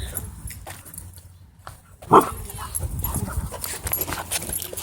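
Dogs scuffling with barks and yips, one loud bark about two seconds in.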